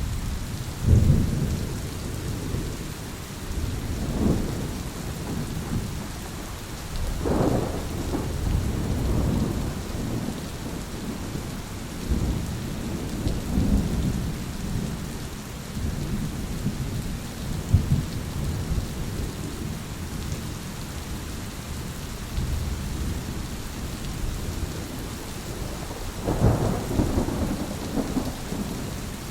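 Thunder rumbling again and again over steady rain, with the strongest peals about a second in, around seven seconds in, and near the end.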